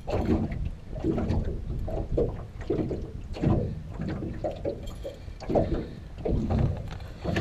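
Irregular thumps and rustles of a striped bass being unhooked by hand in a landing net on a boat deck.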